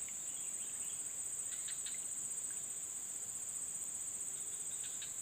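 Steady high-pitched drone of insects in the surrounding vegetation, with a few faint short ticks here and there.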